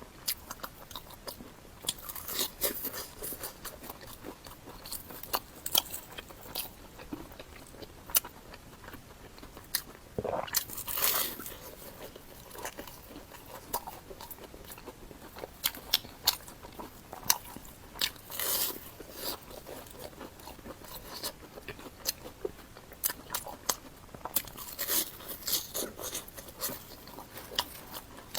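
Close-miked eating of chocolate bread: bites and chewing, with many short crisp crunches and mouth clicks and a few longer bursts of chewing.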